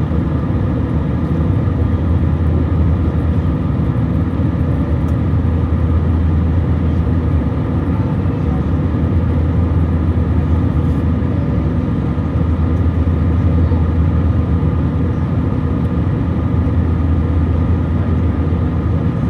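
Steady drone of engine and airflow noise inside an Airbus A321 airliner's cabin, a deep rumble with a few even hum tones over it.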